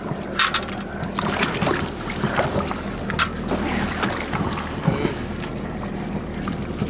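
Boat engine idling steadily under scattered clicks and knocks.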